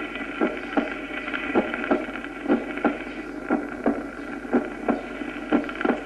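Recorded human heart sounds, as heard through a stethoscope: a steady lub-dub, the first heart sound (closure of the mitral and tricuspid valves) followed closely by the second (closure of the aortic and pulmonary valves), about one beat a second, over a steady hiss.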